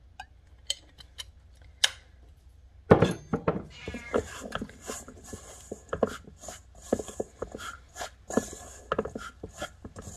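Metal spoon stirring a thick, wet mushroom-and-flour batter in a stainless steel bowl. A few light clicks come first, then from about three seconds in a steady run of clinks, scrapes and brief squeaks against the bowl.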